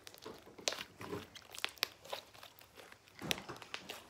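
Butter slime being squeezed and kneaded in the hands, giving off irregular small clicks and pops.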